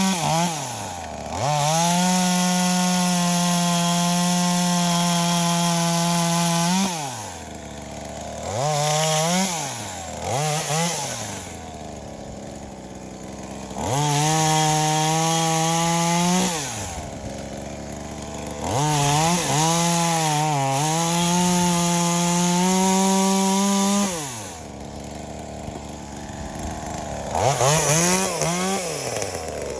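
V-Modest 2511T, a clone of the Echo 2511T small two-stroke chainsaw, revved to full throttle three times for a few seconds each, with short blips in between, dropping back to idle after each. The carburettor is tuned rich, turned way out.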